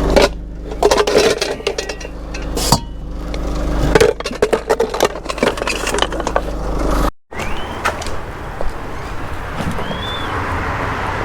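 Scrap being picked through and handled: a run of clinks, knocks and scrapes of metal and plastic over a low rumble. It cuts off suddenly about seven seconds in, giving way to a steady street rush, with two short rising chirps.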